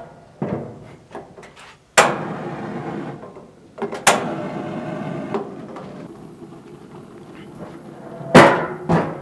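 Gas grill burners being lit: a sharp pop as a burner catches about two seconds in and again about four seconds in, each followed by the steady rush of the burning gas. Near the end the grill's metal hood is shut with a loud clang and a second knock.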